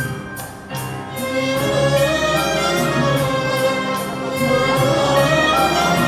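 Live orchestral music: violins play a melody over a steady beat, swelling about a second in.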